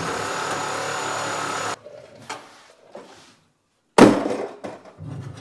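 Corded reciprocating saw running steadily as it cuts through a bolt holding the steering column mount to the dash, stopping about two seconds in. A single loud, sharp metal clank about four seconds in, followed by a few lighter knocks.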